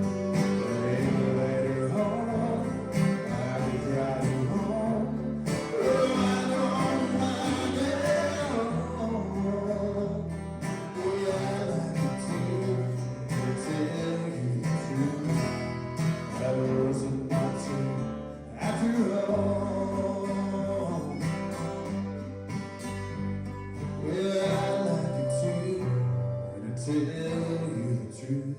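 Background music: acoustic guitar with singing, in a country style.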